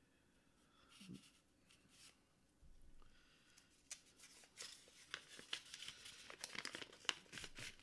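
Soft crackling and rustling of a small rolled paper scroll being handled and unrolled. The crinkling starts about three seconds in and grows busier toward the end.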